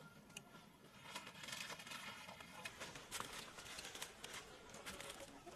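Faint rustling and crackling of kumquat leaves and twigs, with many small sharp snaps and clicks as the bushes are handled during picking. It gets louder about a second in.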